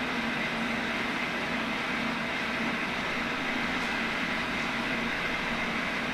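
A machine tool running steadily with a constant hum and whine, with no change in pace or pitch.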